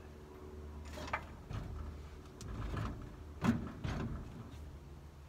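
Car battery being carried and lowered into an empty engine bay, knocking against the car's metal body and frame a few times, the loudest knock about three and a half seconds in.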